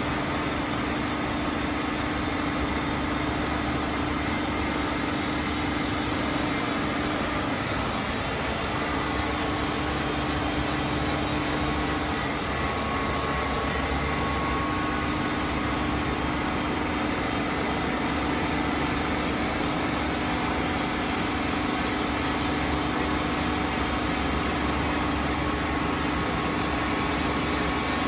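Smith H200 centerless grinding machine and its long-bar feeder running steadily: an even machine noise with a steady hum and a fainter, higher whine.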